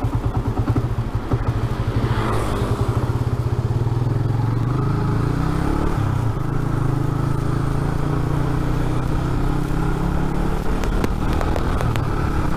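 A 2007 Yamaha Vixion's single-cylinder engine pulling away from a standstill. The beat is pulsing at first, the revs rise, they dip briefly at a gear change about six seconds in, and then it runs steady at a moderate speed.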